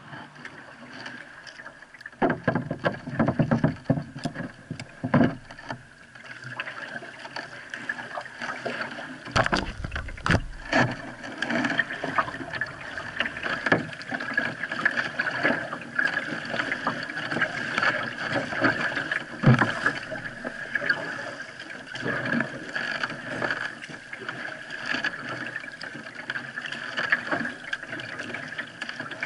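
Kayak paddling: irregular paddle strokes and water splashing and lapping against the hull, with a couple of dull knocks.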